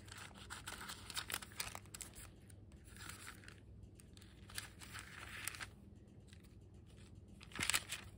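Thin Bible pages rustling and crinkling as they are leafed through and turned by hand, in several short bursts, the loudest near the end.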